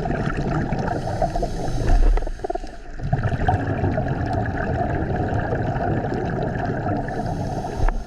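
Underwater ambient sound during a scuba dive: steady water noise with gurgling and faint clicks. There is a louder low surge about two seconds in.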